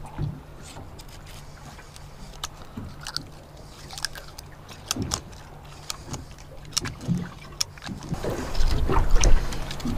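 Screwdriver clicking and scraping inside a conch shell, worked in through a hole knocked in the spire to cut the conch free; scattered sharp clicks. A louder low rumble comes in near the end.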